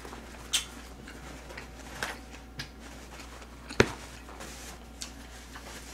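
Quiet eating and table-handling noises: soft chewing with scattered small clicks and taps, the sharpest about four seconds in, over a steady low hum.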